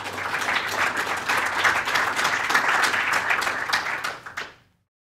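Audience applauding, a dense patter of many hands clapping that fades and stops about four and a half seconds in.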